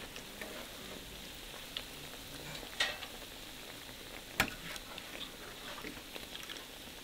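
Sweet plantain slices sizzling steadily as they fry in oil in a pan. A metal slotted spoon clicks against the pan a few times as the slices are turned and lifted out, most sharply about three seconds in and again about a second and a half later.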